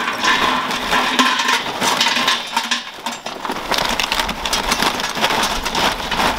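Lumps of charcoal poured from a bag into a stainless-steel barbecue bowl, clattering against the metal and each other in a continuous rattle of clicks.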